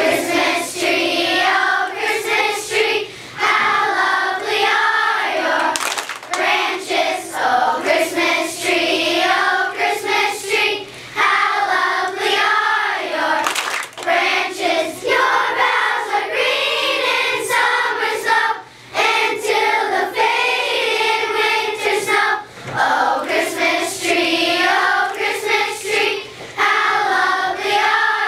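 A large group of children singing together as a choir, in phrases broken by short pauses.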